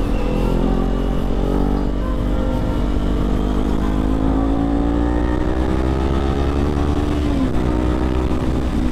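Kawasaki Z400 parallel-twin engine running under way, its pitch climbing slowly as the bike accelerates, then dropping about seven seconds in. Low wind rumble on the microphone lies under it.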